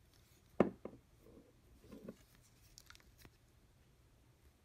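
Handling noise of a pocket multitool being fiddled with: a sharp click about half a second in, a softer click just after, then light rubbing and a few faint ticks.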